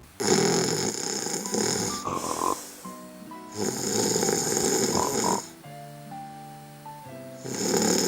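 Snoring: three long snores, each about two seconds, roughly three and a half seconds apart, over light background music.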